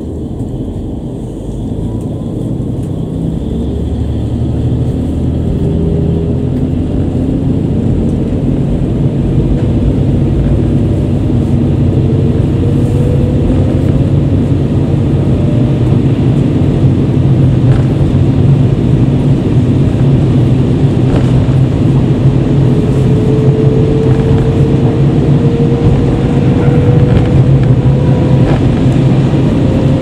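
Inside a KiHa 40 diesel railcar pulling away from a station: the diesel engine and running noise build up over the first several seconds as the train gathers speed, then run on steadily. Slow rising whines sound twice as speed increases, with a few faint clicks from the wheels.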